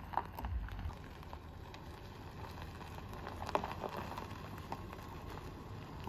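Footsteps crunching on gravel, coming as scattered irregular crunches, with a brief low rumble on the microphone about half a second in.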